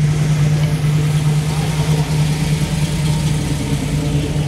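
1969 Chevrolet Camaro SS's 402 cubic-inch big-block V8 held at steady revs during a burnout, one loud unchanging engine note with a broad hiss over it.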